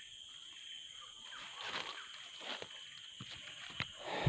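Dry leaf litter rustling underfoot on a forest floor: a few scattered light rustles, then a louder crunch near the end as the person starts walking. A steady high-pitched insect hum runs underneath.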